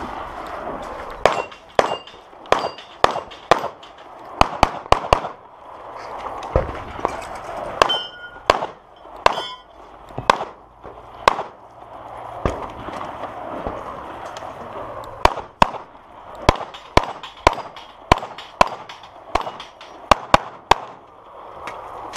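Handgun fired in rapid strings, mostly quick pairs of shots, with short pauses between strings. A few hits about eight to ten seconds in leave steel targets ringing.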